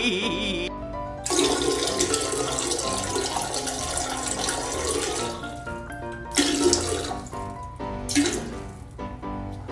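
Running water, like a tap or sprayer, in a long stretch and then two short bursts, over background music with sustained notes.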